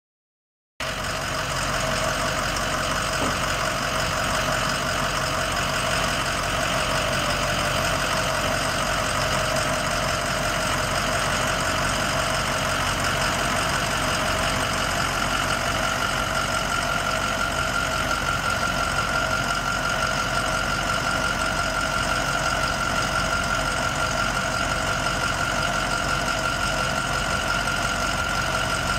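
Ford 6.0L V8 diesel engine idling steadily, with a steady high whine over it that grows stronger about halfway through.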